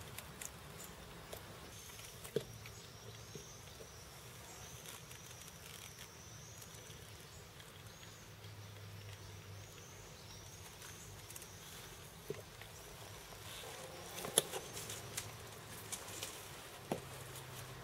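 Leather boot heels knocking on stone steps a few times near the end, sharp single steps. Through the first part a faint, high, wavering call carries on in the background.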